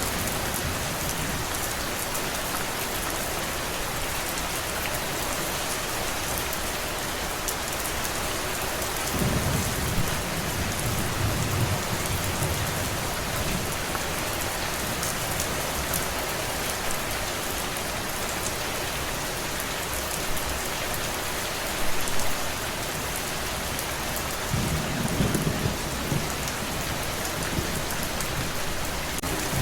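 Steady rain, with low rolls of thunder rumbling underneath, about nine seconds in and again near the end.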